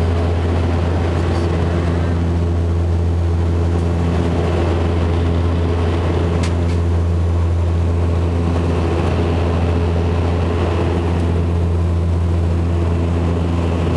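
Turboprop airliner in flight heard from inside the cabin: the propeller and engine give a loud, steady, deep drone with a few higher hum tones above it, over a constant rush of air.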